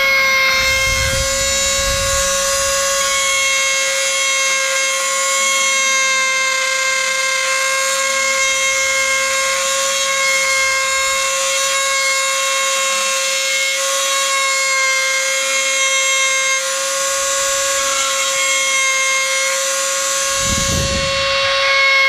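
Handheld rotary tool running at a constant high speed with a steady whine, its cut-off wheel grinding a groove around a pipe stem.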